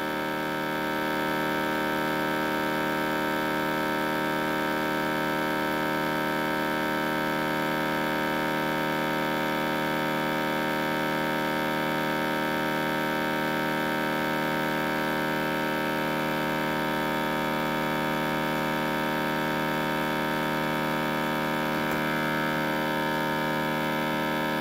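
Countertop vacuum sealer's pump running without a break, drawing the air out of a large mason jar through a hose and jar-sealer attachment: a loud, steady electric hum with many tones, which shifts slightly near the end.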